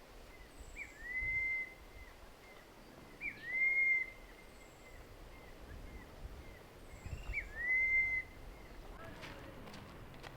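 A clear whistled call, three times, a few seconds apart: each a quick downward flick followed by a steady held note of about half a second.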